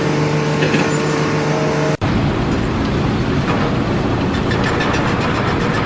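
A motor running with a steady hum; about two seconds in, it cuts off abruptly into louder, rough machinery noise.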